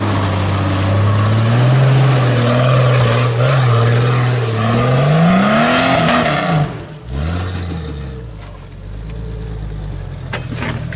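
Jeep Cherokee XJ engine working hard under load, climbing a steep muddy stream bed: loud and steady at first, then revving up and falling back. About seven seconds in it drops to a quieter, lower steady running, with a couple of short clicks near the end.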